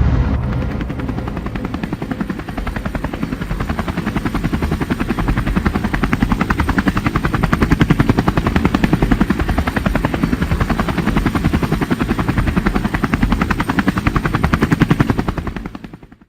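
Helicopter rotor blades chopping in a fast, even beat, fading out near the end.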